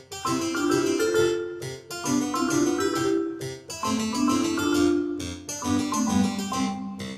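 Background music: a keyboard melody over a steady, even pulse.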